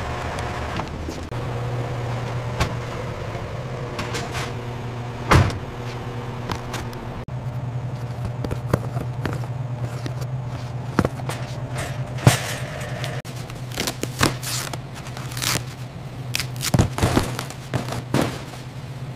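Delivery truck engine running steadily, with several sharp knocks and clatters over it, the loudest about five and twelve seconds in and a cluster near the end.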